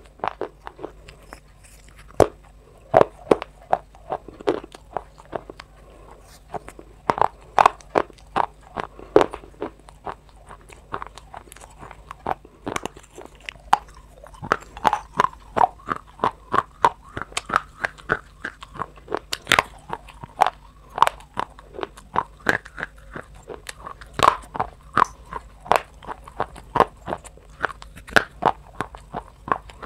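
Crunchy dry clay being bitten and chewed: a rapid, irregular run of sharp crisp crunches, one or two a second.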